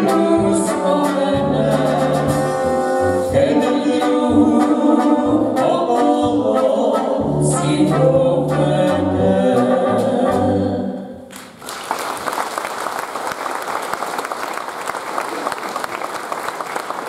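Brass band with tuba bass, brass and a drum beat, accompanying several voices singing together. The song ends about eleven seconds in, and audience applause follows.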